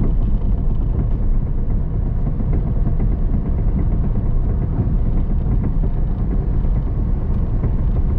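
Steady low engine and road rumble of a car being driven, heard from inside the cabin.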